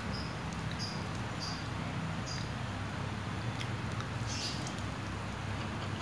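Close-up mouth sounds of a person eating Indomie goreng instant fried noodles: short wet smacks and slurps while chewing, several quick ones in the first couple of seconds and a longer one about four seconds in, over a steady low hum.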